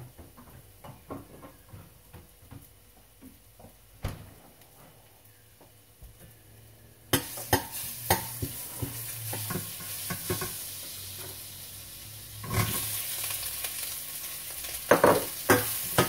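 Onions and ginger frying in oil in a hot stainless steel pan. The sizzle starts suddenly about seven seconds in and gets louder about twelve seconds in, and a utensil clicks and scrapes against the pan near the end.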